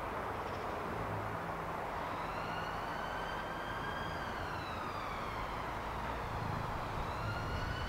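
Network Rail multi-purpose vehicle (MPV) rolling slowly on curved track, its diesel engine running low under a high metal-on-metal squeal from the running gear. The squeal rises and falls in pitch over a few seconds, fades, then starts again near the end.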